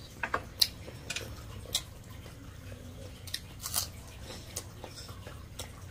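Close-up eating sounds of rice and meat curry eaten by hand: chewing with a string of short, irregular wet clicks and smacks.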